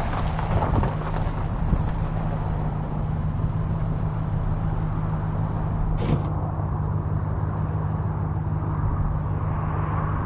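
Vehicle engine running steadily with a constant low hum, and one short sharp click about six seconds in.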